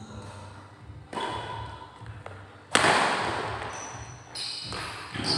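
Badminton rally: a sharp racket strike on the shuttlecock about halfway through, the loudest sound, ringing on in the echoing hall, with smaller knocks of play before and after it.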